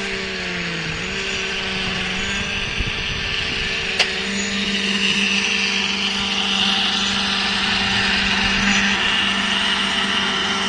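Concrete mixer pump running steadily with a constant mechanical drone, and one sharp knock about four seconds in.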